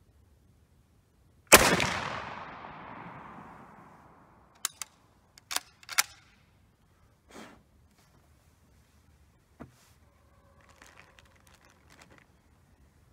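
A single shot from a Model 1866 Chassepot needle-fire rifle firing a handmade black-powder cartridge, about a second and a half in, with a long echoing tail. A few seconds later come several sharp metallic clicks of the bolt being worked, then fainter clicks and rattles near the end.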